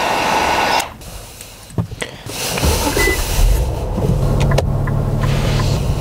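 A heat gun blowing, cutting off abruptly about a second in; after a few sharp clicks, the 2018 Infiniti Q50's engine idles with a steady low hum.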